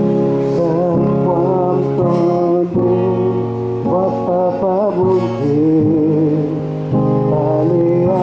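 A man singing a song through a microphone with vibrato, over held instrumental chords.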